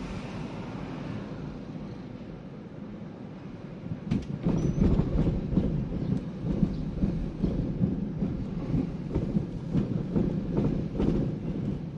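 Car road noise heard inside the cabin, a steady low hum at first, then about four seconds in a louder, uneven rumble with quick knocks as the tyres roll over raised painted rumble strips.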